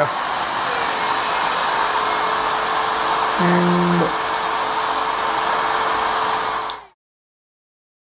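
Handheld hair dryer running steadily, blowing air through a digital turbine flow meter: a steady rush of fan noise with a constant motor whine. It stops abruptly about seven seconds in.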